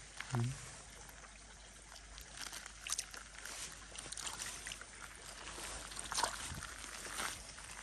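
Faint trickling water, with a few scattered light clicks.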